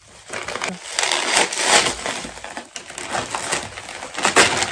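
Bubble wrap crinkling and crackling as it is handled and pulled off a parcel. It is loudest about two seconds in and again briefly near the end.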